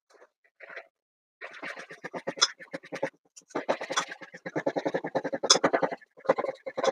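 A spoon beating thick cake batter in a stainless steel bowl: rapid scraping strokes against the metal, starting about a second and a half in, with two short pauses.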